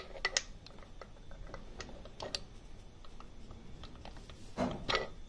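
Light metallic clicks and taps of hand-handled valve-gear parts as a hydraulic lash adjuster is tried into place on a D49 locomotive diesel's cylinder head, with a louder scrape near the end.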